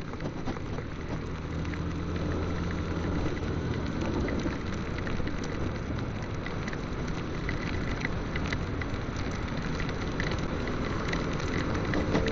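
Motorcycle on the move: a steady rush of wind and road noise over a low engine hum, with many light ticks scattered through it.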